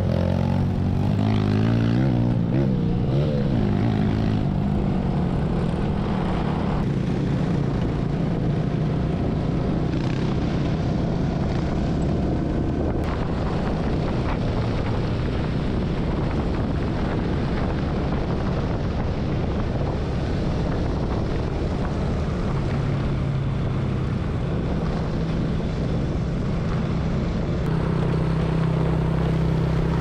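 Small motorcycle engines running at trail-riding speed. The engine note rises and falls with throttle in the first few seconds, then holds steady, shifting pitch a couple of times near the end.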